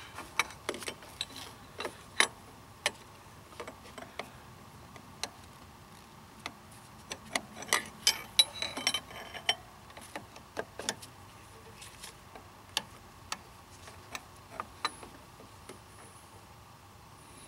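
Irregular light clicks and taps of hand tools and small parts being handled during car repair work, bunching into a quicker run of clicks about seven to nine seconds in.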